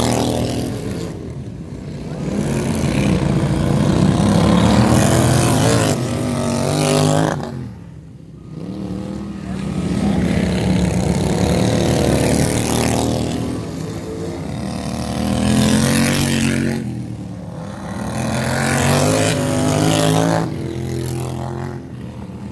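Several racing lawn mowers' small engines revving hard as they pass one after another, the sound swelling and fading with each pass and their pitch shifting, with brief lulls about eight and seventeen seconds in.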